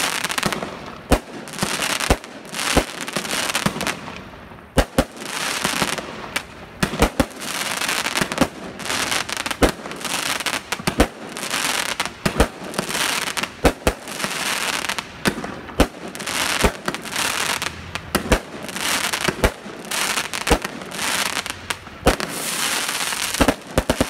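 Aerial fireworks bursting overhead: a long run of sharp bangs in quick succession, with crackling between them.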